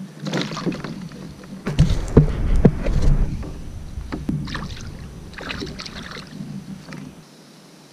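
Water splashing and sloshing beside a kayak as a redfish held on a fish grip is lowered into the water and released, kicking at the surface. The heaviest splashing and knocks come about two to three seconds in, followed by smaller scattered splashes.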